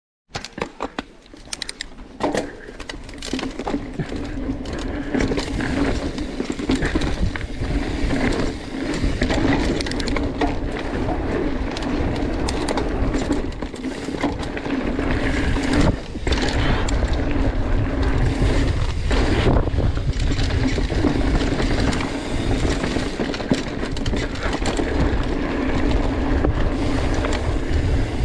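Mountain bike riding fast down a dirt forest trail, heard from a camera on the bike or rider: tyres rolling over dirt, wind on the microphone, and frequent rattling knocks from the bike over bumps. A steady buzzing note runs underneath and drops out briefly a few times.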